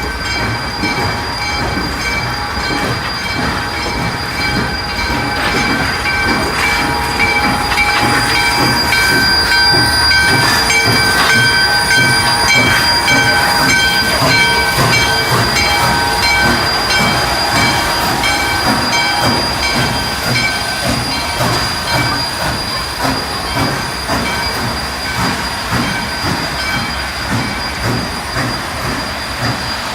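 Number 28 steam locomotive pulling a train, with steady high-pitched squealing tones over a rapid, even pulsing, growing louder toward the middle and then easing.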